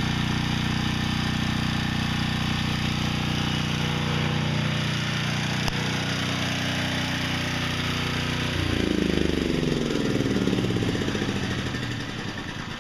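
Troy-Bilt portable generator's small engine running steadily, then shut off about eight seconds in and winding down with a rougher, falling sound that fades out.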